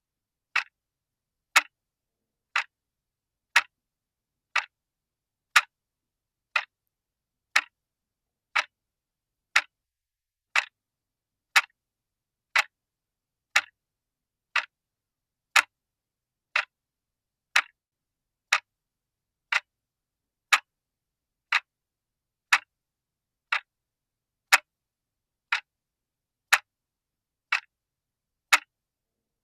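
Clock ticking at a steady once-a-second beat, each tick short and sharp with silence between.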